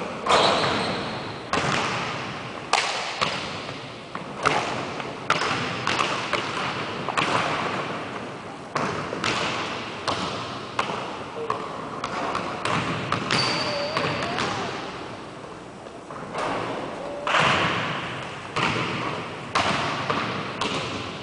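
Basketballs bouncing on a hardwood gym floor: irregular sharp thuds, each echoing in the large hall.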